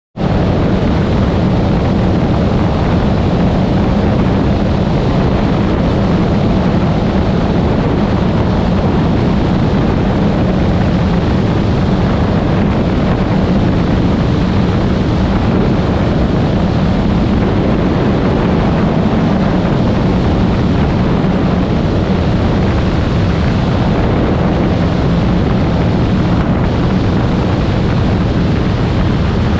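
Cessna 185's piston engine and propeller running steadily in level flight, mixed with heavy wind rush over an outside-mounted microphone.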